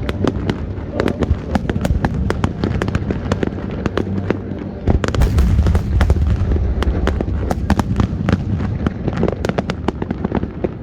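Fireworks display: a rapid, dense volley of shell bursts, bangs and crackles, growing heaviest and loudest about five to six seconds in.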